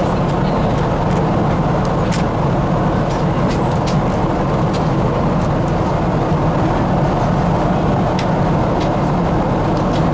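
Steady cabin noise inside a Boeing 777 airliner, the rush of its engines and airflow, with a few light clicks over it.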